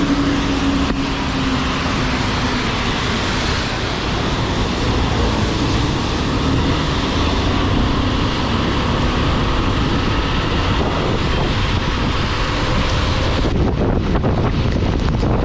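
Wind rushing over an action camera's microphone on a moving motorcycle in the rain, a steady roar with road and engine noise underneath. The hiss dulls slightly near the end.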